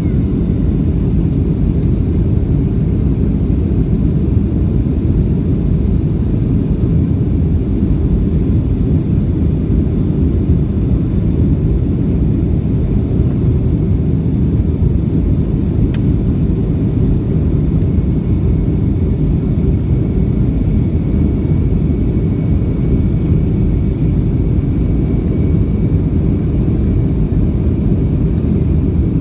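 Steady low rumble of a Boeing 737-800's CFM56 jet engines and airflow, heard inside the cabin during the climb after takeoff. A faint high whine joins in about two-thirds of the way through.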